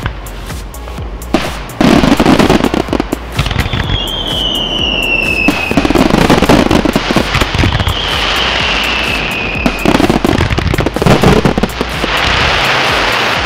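A fireworks barrage: shells bursting in quick succession with dense crackling, several heavy bursts, and two falling whistles a few seconds apart.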